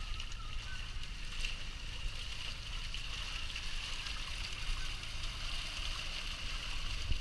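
Water splashing and sloshing as a catch of horse mackerel thrashes in a net being hauled alongside a boat, over a low steady rumble.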